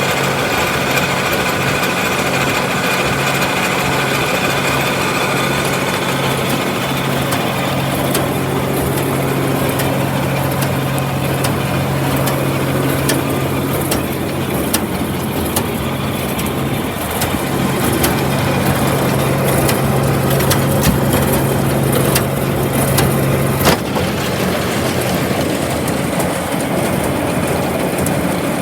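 John Deere 700 grinder mixer running off a tractor: a steady mechanical hum with scattered rattling clicks. Shortly before the end the steady hum drops out with a sharp clack.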